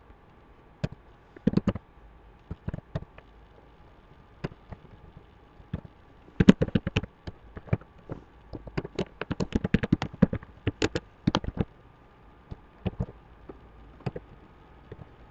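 Computer keyboard typing: irregular keystrokes coming in quick bursts, busiest in the middle, over a faint steady hum.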